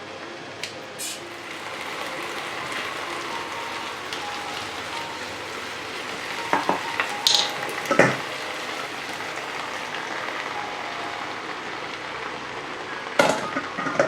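Food sizzling steadily in a frying pan while it is stirred, with a few sharp knocks of a utensil against the pan around the middle and again near the end.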